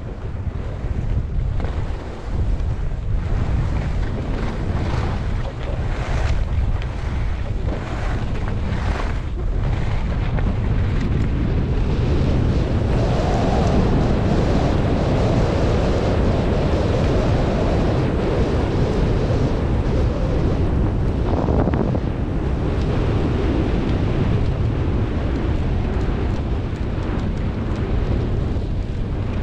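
Wind buffeting the camera microphone in a steady, heavy rush. A rushing hiss swells louder about twelve seconds in and eases off again after about ten seconds.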